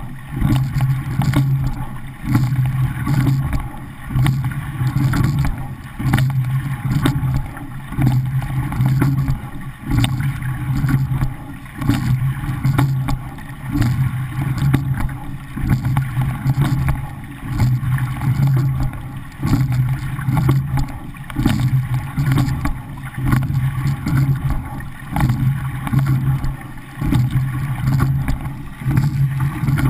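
Water rushing along the hull of a racing rowing shell (a men's pair) under way, heard from a mount on its bow deck. It surges and eases in a steady rhythm about once every second and three-quarters, with each rowing stroke.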